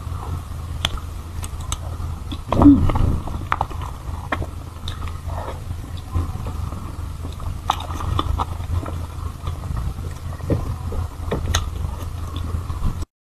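Eating soft strawberry mousse with a spoon from a plastic cup: wet mouth and lip sounds and scattered light clicks of the spoon on the cup, over a steady low hum, with one louder moment about two and a half seconds in.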